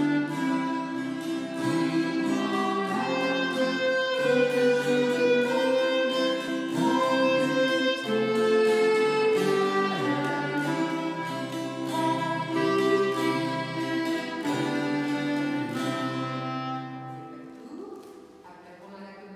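Live instrumental music from a small group of string players: held melody notes over a steady plucked accompaniment, dying away near the end.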